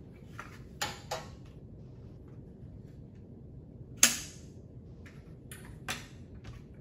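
Adjustable aluminium underarm crutch being shortened: a series of sharp metallic clicks and clacks as its height-adjustment parts are worked, the loudest about four seconds in.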